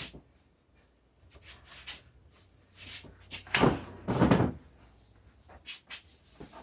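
Clunks and knocks of a table saw being lifted off its mounting, with two heavy knocks about halfway through and lighter clicks around them.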